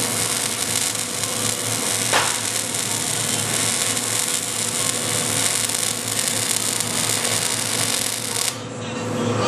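Electric arc welding running a bead across a 4 mm gap: a steady, dense crackling hiss from the arc that stops abruptly about eight and a half seconds in, when the arc is broken.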